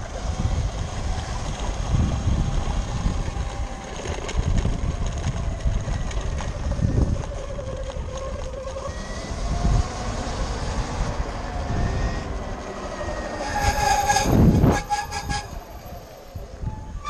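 Electric off-road bike being ridden over rough ground: a motor whine that rises and falls with speed over the rumble of tyres and wind. Near the end a loud jolt is followed by a short high squeal lasting about a second, then it quietens.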